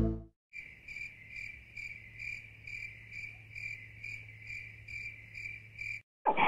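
Cricket chirping in an even rhythm, about five chirps a second, over a faint low hum; it starts about half a second in and cuts off abruptly near the end.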